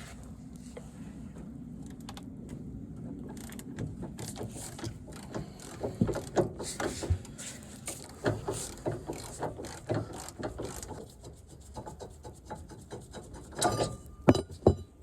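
Ratchet spanner clicking in quick runs as a bolt is worked, followed by a few sharp metallic clinks near the end.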